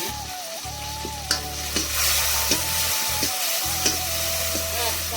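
Food sizzling in hot oil in a pan while being stirred, a spoon clicking against the pan a few times.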